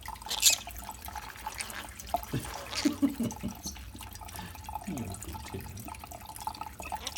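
Tap water running steadily into a sink, with a couple of brief splashes, one about half a second in and another near three seconds.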